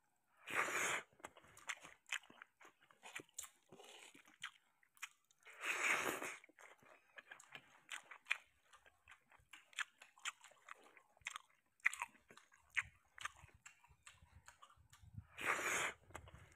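Close-up eating sounds of a person chewing mouthfuls of sardines and rice, with many short wet clicks and smacks of the mouth. Three louder, half-second noisy bursts come about a second in, at about six seconds and near the end, as handfuls go into the mouth.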